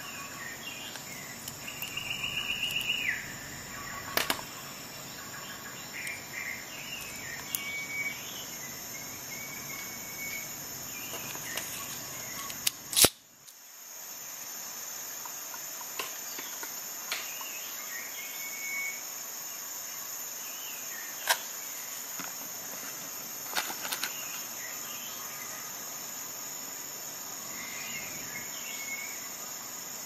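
Steady, high-pitched chorus of insects, with bird chirps and a fast trill near the start. A few sharp clicks cut through, the loudest about halfway in.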